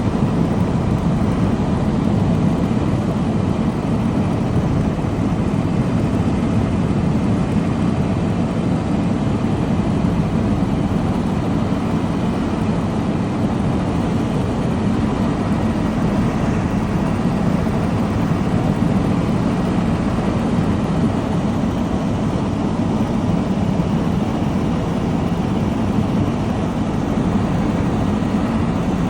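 Helicopter in flight: a steady, unchanging drone of rotor and engine.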